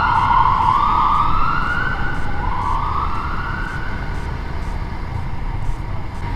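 A siren wailing in slow rising-and-falling sweeps, two or three cycles, that fade out a little past the middle, over a steady low rumble of road and wind noise.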